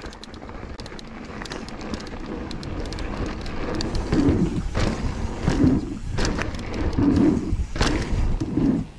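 Riding noise of a mountain bike descending a rocky downhill trail, heard from the rider: wind rumble on the helmet microphone and tyres on dirt and rock grow louder as speed builds, with constant rattling and clicking from the bike. From about four seconds in come four heavier low thumps, roughly one every second and a half.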